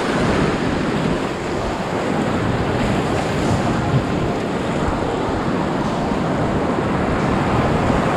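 Loud, steady rush of whitewater in a steep mountain creek rapid, heard close up from a small inflatable packraft running through it.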